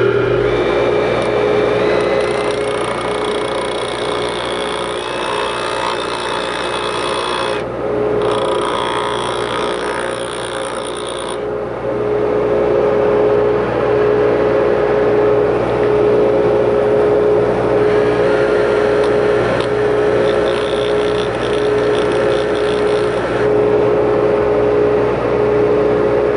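Bench grinder running with a steady hum while a 2-4 servo apply pin, spun in a cordless drill, is ground down against the wheel to shorten it. A thin drill whine shifts pitch over the first ten seconds or so.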